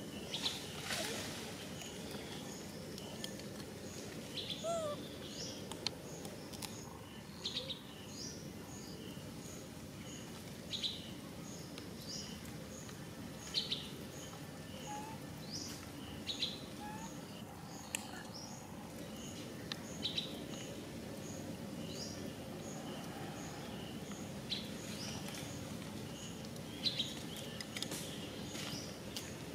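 Birds chirping outdoors: short, sharp high chirps every second or two. Under them runs an evenly repeated high pip about once a second, over a steady low background hum.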